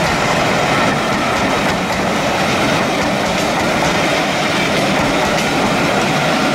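Heritage passenger coaches rolling steadily past, a continuous rumble of wheels on the rails with faint clicks over the rail joints.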